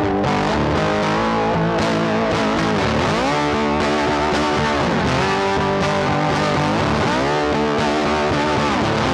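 Background music led by electric guitar with distortion, its notes sliding in pitch a few times.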